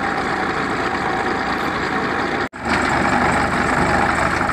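Engine of a two-wheel walking tractor with a rotary tiller running steadily at idle. The sound cuts out for an instant about halfway through.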